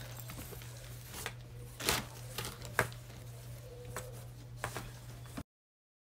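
Soft rustles and a few light clicks from handling a velvet dress, over a steady low hum. The sound cuts off to dead silence about five seconds in.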